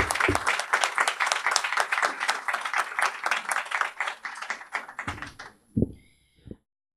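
Audience applauding: many hands clapping in a dense patter that thins out about five seconds in. A couple of brief thumps follow before the sound cuts off abruptly.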